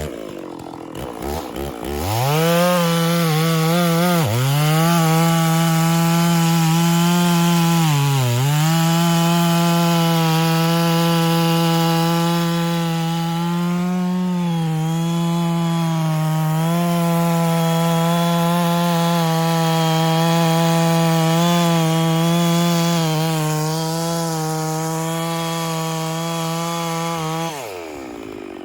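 Two-stroke chainsaw at full throttle cutting through dead pecan wood. It revs up, dips in pitch twice under the load early on, then holds a steady high pitch before dropping back off the throttle near the end.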